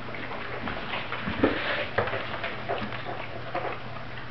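Doberman puppies nursing: faint, scattered suckling and shuffling sounds over a low steady hum.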